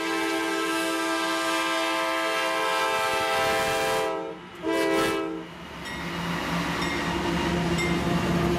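Kansas City Southern GE ES44AC diesel locomotive's multi-chime air horn sounding a loud, steady chord, with a brief break about four and a half seconds in and one short last blast that ends about a second later. Then the passing locomotives' engines and wheels rumble by close at hand.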